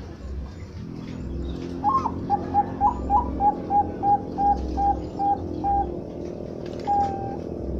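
Zebra dove (perkutut, Bangkok song type) cooing: a run of about a dozen short, evenly spaced notes, the first few slightly higher, then one longer note near the end. A steady low hum runs underneath.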